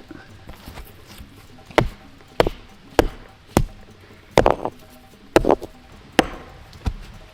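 Wood being chopped by hand: about eight sharp chopping blows at an uneven, unhurried pace, some with a brief ring after the strike.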